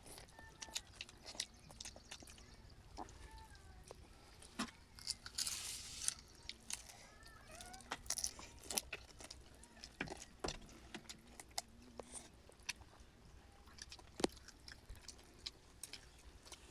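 A person chewing and crunching food close to the microphone: a steady string of irregular sharp crunches and mouth clicks.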